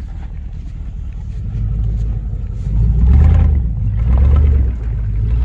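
Chevrolet 1500 pickup's engine running with its muffler knocked off: a loud, low open-exhaust rumble that sounds like a straight pipe. It grows louder about a second and a half in and swells and falls a few times.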